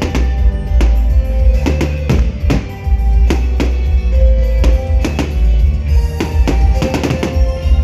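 Loud music with a drum kit playing a steady beat of about two hits a second over heavy bass.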